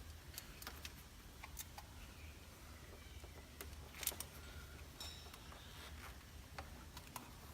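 Faint, scattered small clicks and light knocks of fuel injector wiring connectors being released and unplugged by hand, their metal retainer clips pressed to free them. One click about four seconds in is a little louder. A low steady hum runs underneath.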